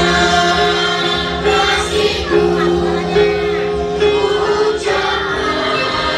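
Music with singing: a song with several voices and steady accompaniment.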